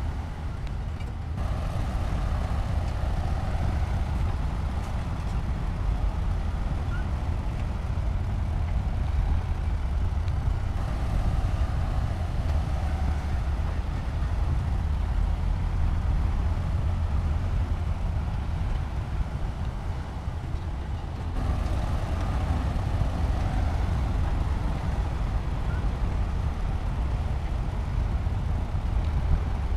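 Heavy diesel construction machinery running steadily, its engine sound mostly deep and low. The sound changes abruptly about a second in and again about two-thirds of the way through.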